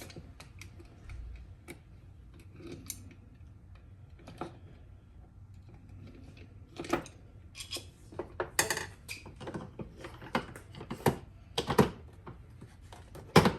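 Scattered small metallic clicks and clinks of Allen wrenches and small screws being handled while loosening mounting hardware, few at first and busier in the second half.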